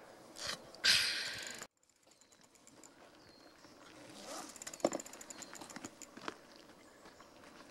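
A short hiss about a second in, then quiet rustling and a few sharp clicks as a canvas bicycle saddlebag is rummaged through.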